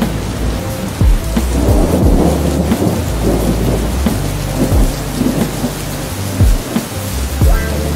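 Steady heavy rain with thunder rumbling through the middle, and a few short low thuds.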